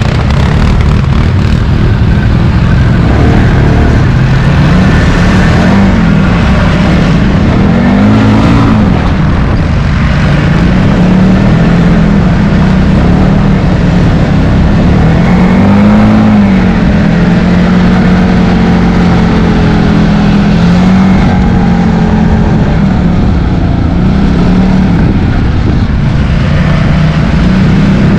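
ATV (quad bike) engines running as the quads are ridden over rough trail, the nearest engine's note rising and falling with the throttle several times.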